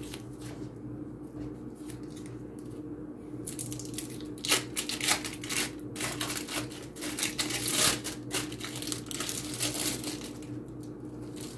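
Plastic packaging crinkling and rustling in a dense run of irregular bursts from about four to nine seconds in, over a steady low hum.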